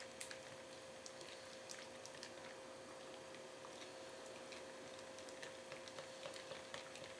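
A whisk stirring powdered gelatin into water in a glass measuring cup: faint, irregular light ticks of the whisk against the glass and soft stirring of the liquid.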